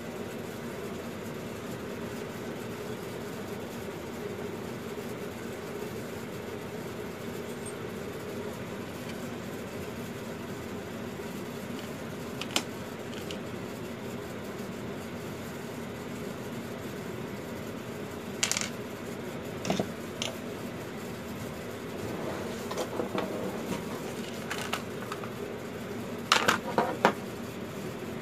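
Drill bits clinking and tapping as they are picked out of a drill-bit case and handled, a few sharp metallic clicks scattered through the second half with a quick cluster near the end, over a steady low hum.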